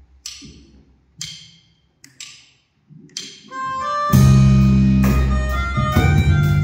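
Drumsticks clicked together four times, about a second apart, as a count-in. The band then comes in loud about four seconds in, with acoustic guitars, electric bass and drums.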